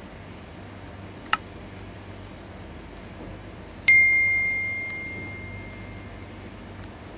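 Sound effect of a subscribe-button animation: a single click, then about two and a half seconds later a bright bell ding that rings out and fades over a couple of seconds. A low steady hum runs underneath.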